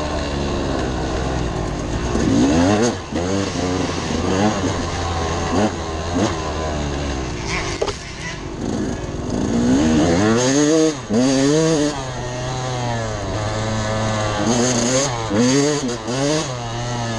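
Dirt bike engine revving up and down over and over as the rider works the throttle and shifts, the pitch climbing and dropping every second or two, with a lower, quieter patch near the middle and a run of sharp climbs soon after.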